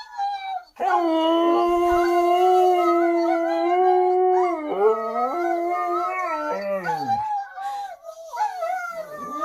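Husky howling: one long held howl starting about a second in and lasting nearly four seconds, then shorter howls that bend and slide down in pitch, with wavering howls again near the end.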